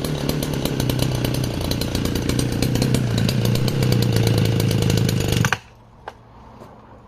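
Sachs Dolmar 119 61cc two-stroke chainsaw running flat out, cutting through wood with a new full-chisel chain. The engine note is steady, with a slight shift about three seconds in, and the sound cuts off suddenly about five and a half seconds in, leaving a few faint clicks.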